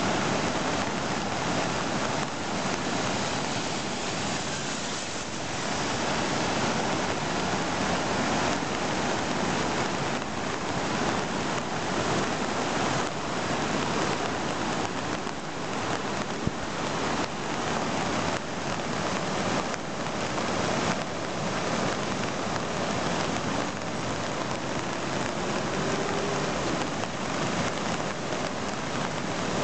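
Floodwater rushing through and below the open spillway gates of a dam in spate: a steady, unbroken rush of turbulent water.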